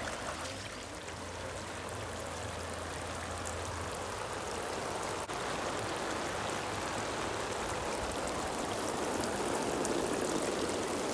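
Steady hiss of water spraying from the small jets around the sides of a hose-fed inflatable splash pad, growing slightly louder toward the end.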